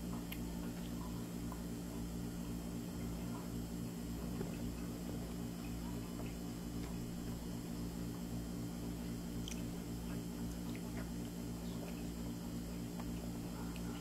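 Steady low electrical hum, with faint soft clicks and mouth sounds from a toddler picking at and eating a grape.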